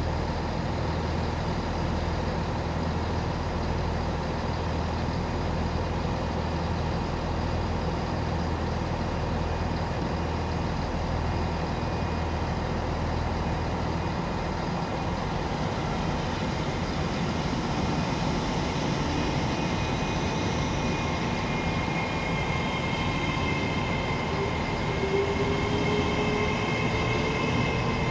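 GWR Class 802 bi-mode train pulling out of the platform. A steady low hum fills the first half. As the train gets moving, a whine rises slowly in pitch and rail running noise builds up.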